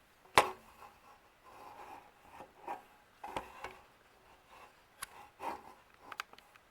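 Scattered handling noises: a sharp click about half a second in, then light rubbing and a few softer clicks.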